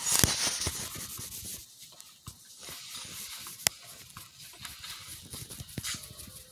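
Handling noise from LEGO minifigures being moved by hand: rubbing and rustling with a run of small clicks, busiest in the first second and a half, then a few separate sharp plastic clicks, the loudest a little past halfway.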